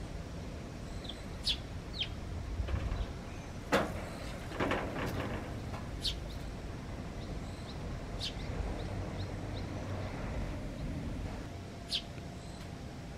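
Small songbirds giving several short, high chirps spread a few seconds apart, over a steady low background rumble. A single sharp click about four seconds in is the loudest sound.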